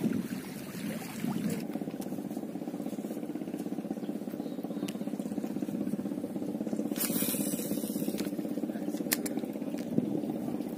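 A small boat engine running slowly, a steady, rapidly pulsing hum. There is a brief rush of hiss about seven seconds in and a couple of sharp clicks near the end.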